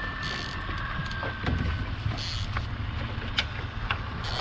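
Fishing boat's motor running steadily, with a few light clicks and two short hissing bursts.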